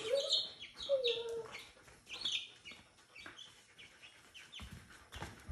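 Baby chick peeping over and over: short, high, falling peeps, several a second, louder in the first couple of seconds.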